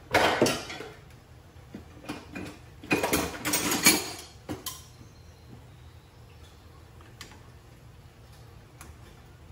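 Metal hand tools clattering and rattling in several bursts over the first four seconds, then a few light metallic clicks.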